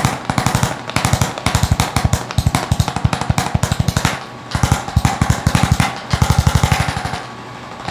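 Percussion massager pounding rapidly and evenly on the body, in runs of about one to two and a half seconds with short breaks between.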